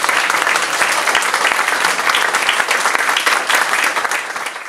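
Audience applauding: dense, steady clapping that starts to fade near the end.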